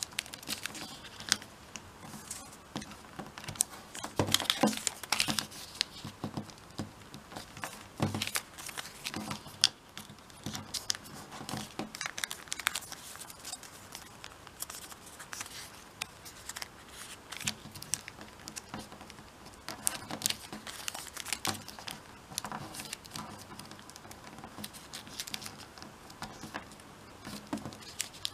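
A square of origami paper being folded and creased by hand: irregular crinkling and rustling, with sharp little crackles as fingers press and run along the folds.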